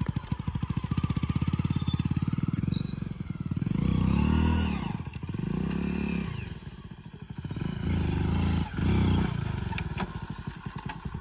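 Hero Splendor Plus motorcycle's single-cylinder engine putting at low revs, then revved up and back down several times in the middle before settling back to a low, steady putt.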